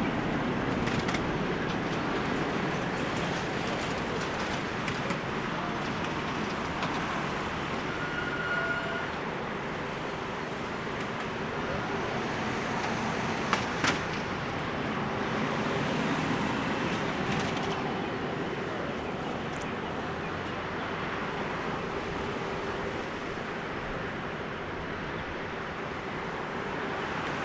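Boeing 747-400 jet engines at takeoff power heard from a distance as a steady broad rumble, with two short sharp clicks about halfway through.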